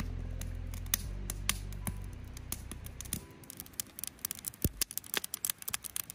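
Wood campfire crackling with irregular sharp pops, denser in the second half, under background music that fades out over the first three seconds.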